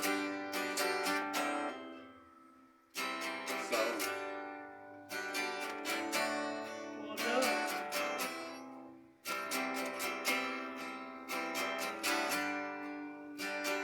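Acoustic guitar strumming chords in an instrumental passage. Twice the strumming stops and a chord rings and fades before it starts again.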